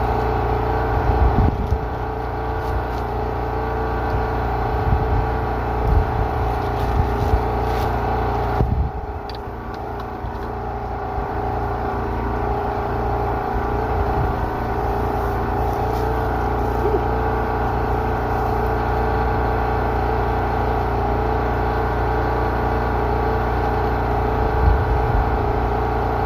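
A steady mechanical drone with several constant tones, like a motor running, over a strong low rumble, with a few low thumps. It dips briefly about nine seconds in.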